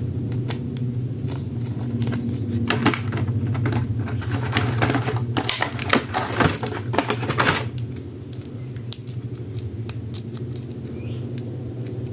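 Dense, irregular plastic clicks and rattles from action figures and their packaging being handled during unboxing, thinning out after about seven seconds, over a steady low hum.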